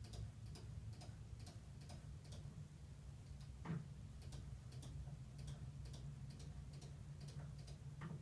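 Steady ticking of a clock, about two ticks a second, over a low hum, with one soft knock about midway.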